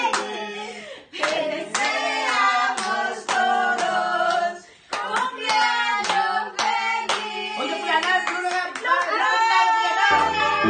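A small group of people singing together and clapping along in time, about two claps a second. Background music comes in near the end.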